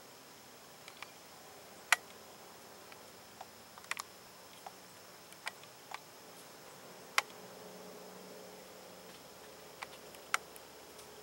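Sharp, irregular clicks and cracks, about a dozen with the loudest near two, four, seven and ten seconds in, from a whitetail spike buck feeding head-down in dry leaf litter close by.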